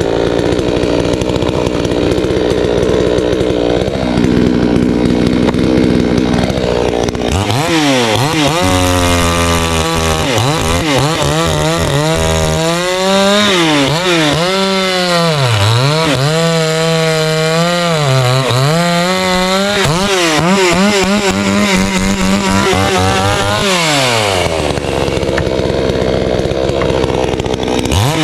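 Garwinner two-stroke gas chainsaw engine running hard while its tank is run dry. It holds steady at high revs, then for about sixteen seconds the revs rise and fall again and again, then it steadies at high revs once more.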